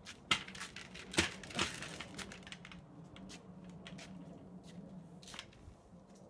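Aluminum folding hand truck loaded with a bucket of rocks rolling on its wheels over concrete, with scattered clicks and rattles; the sharpest knocks come in the first two seconds.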